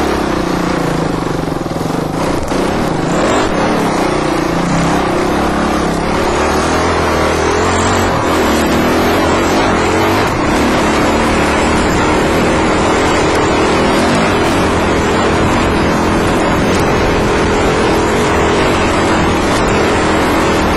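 Dirt bike engine running under the rider, its note rising and falling over the first few seconds and then holding steadier as the bike climbs a rocky trail.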